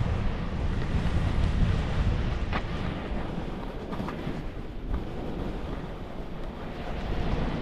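Wind buffeting the microphone while moving along a groomed snow trail: a steady rushing noise, heaviest in the low end, with a few faint clicks about two and a half, four and five seconds in.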